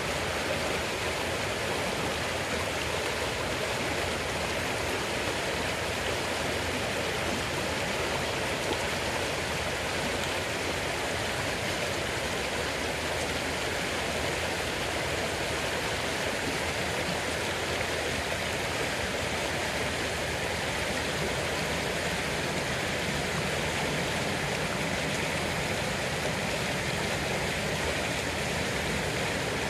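A shallow river running over a stony bed and through small riffles, a steady rushing of water.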